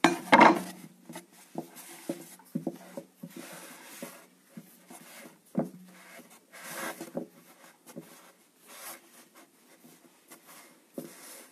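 Hands trimming and tearing thin hand-stretched phyllo dough at the rim of a baking pan: soft rustling and rubbing with scattered light taps, after a louder knock about half a second in.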